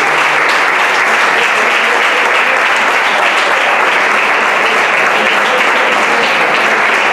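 Audience applauding: a roomful of people clapping, loud, dense and steady.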